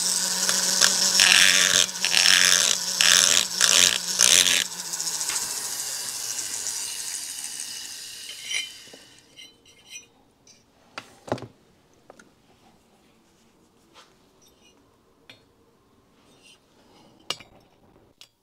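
Pencil die grinder with a long-shank burr cutting into a port of a two-stroke motorcycle cylinder: a steady whine with harsh grinding. About four and a half seconds in it stops cutting and winds down, its pitch falling over a couple of seconds. A few light clicks of handling follow.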